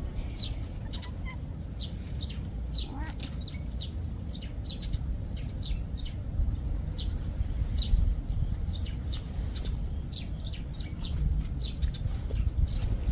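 Small birds chirping: many short, high, quick chirps, several a second, over a steady low rumble.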